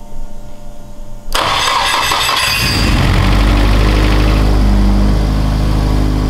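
Freshly built forged SR20DET turbo four-cylinder starting: after about a second of cranking it fires suddenly and loudly, then settles by about the middle into a steady idle.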